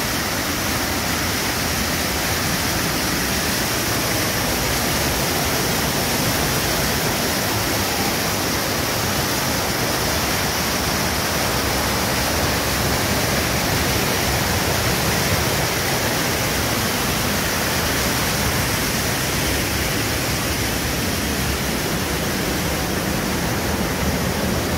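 Water cascading over a weir into a brick-lined channel: a steady, unbroken rush.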